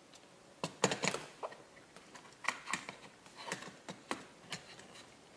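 Irregular light clicks and taps of a plastic garage door opener wall button being handled and slid down onto a screw head on the wall.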